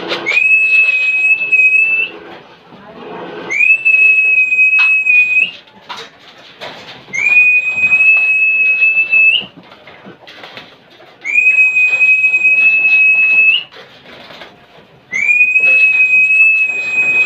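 Five long whistles, each held steady for about two seconds with a quick upturn at the start and end, repeated every few seconds as a feeding call to pigeons. Light clatters are heard in the gaps.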